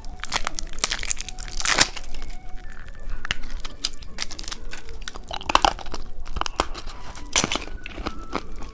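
Plastic candy wrapper crinkling and tearing as it is opened: a run of sharp rustles and clicks, with a few louder crackles.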